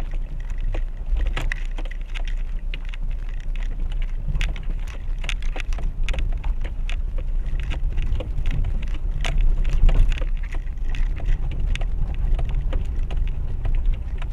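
Renault Duster crawling over a rocky mountain track: a steady low rumble from the engine and tyres, with frequent clicks and knocks from stones under the wheels and from the body and suspension.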